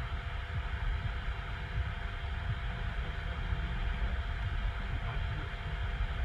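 Wind buffeting an outdoor microphone: an uneven low rumble that never lets up, with a steady faint hiss above it.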